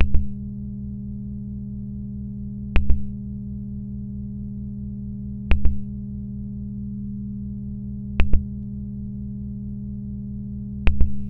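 Electronic stage sound score: a steady, low synthetic hum with a pulsing throb underneath, broken at regular intervals of a little under three seconds by a sharp double click with a brief high beep, five times in all.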